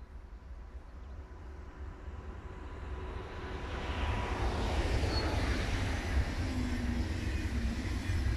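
Deutsche Bahn ICE high-speed electric train approaching and passing at speed: a rising rush of wheels on rail and air that grows louder over the first four or five seconds, then holds steady as the coaches go by.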